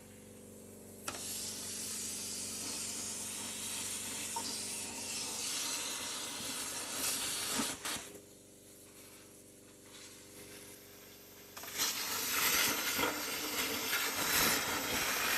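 Electric arc of a gasless plasma cutter and stick welder machine hissing and sizzling in two long stretches. The first runs from about a second in to about eight seconds; after a pause it starts again, louder, from about twelve seconds.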